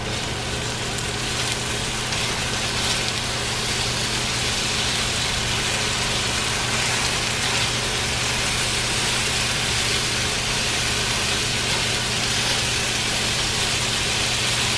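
Diced potatoes frying in steak drippings in a pan, a steady sizzle, with a steady low hum underneath.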